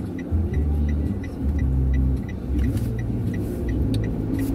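Bass-heavy music from a car stereo heard inside the car: a deep bass line stepping from note to note, with an even tick about three times a second over it.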